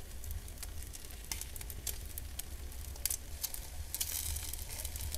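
Eel fillet baking with pineapple on foil in a wood-fired oven, sizzling with frequent sharp crackles and pops next to the burning logs, over a low steady rumble.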